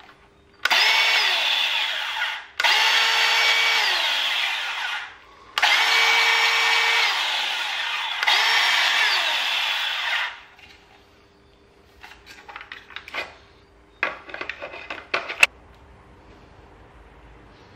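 DeWalt DCS371 cordless band saw running with no load: the trigger is pulled four times in the first ten seconds, the motor and blade speeding up, holding and winding down each time. After that come a few light clicks and rattles from handling the saw.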